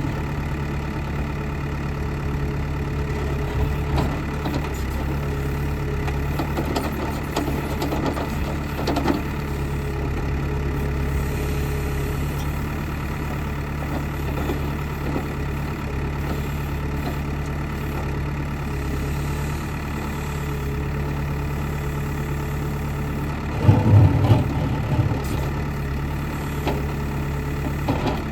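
Backhoe loader's diesel engine running steadily, with a short burst of louder knocks about 24 seconds in.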